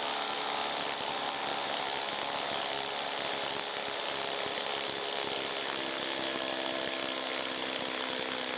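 Ryobi HP impact driver running in reverse, hammering steadily as it backs a long lag screw out of a log.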